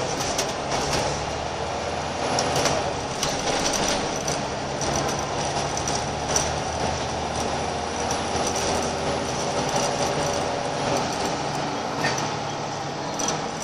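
Scania L94UB bus's rear-mounted diesel engine running steadily under way, heard from inside the saloon, with frequent short rattles from the bus's interior fittings.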